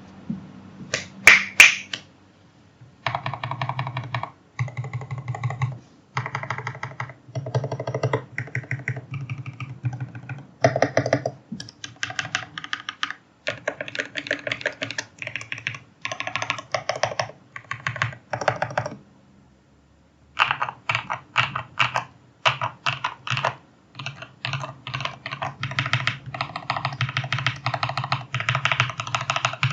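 Typing on a Mode SixtyFive mechanical keyboard with lubed, filmed Prevail Epsilon linear switches and PBT keycaps on an aluminium plate. A few single keystrokes about a second in, then runs of rapid keystrokes broken by short pauses, the longest about two-thirds through.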